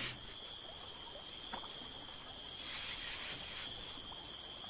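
Insect chorus trilling steadily at a high pitch, with a fainter pulsing call above it.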